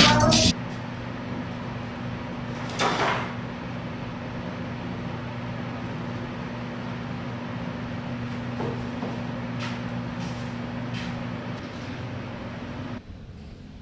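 Steady electric hum of workshop machinery with two steady low tones. About three seconds in there is a short wooden bump or scrape, and a few light knocks follow later as the big plywood cabinets are handled. The hum drops away near the end.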